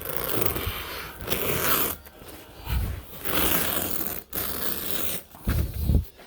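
Carpet knife slicing through carpet and its backing freehand, in three long rasping strokes with a few low thuds as the carpet is handled.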